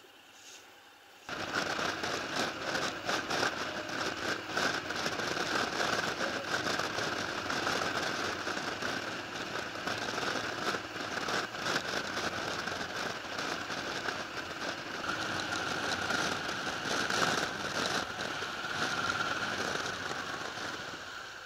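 Wind and road noise rushing over a motorcycle-mounted camera's microphone while riding at speed, full of crackling buffeting. It starts suddenly about a second in.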